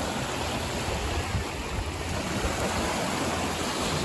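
Shallow sea waves washing steadily at the shoreline, with wind rumbling on the microphone.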